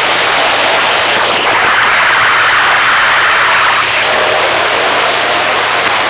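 CB radio receiver hissing with loud, even static between transmissions, with a faint steady tone coming in about two-thirds of the way through.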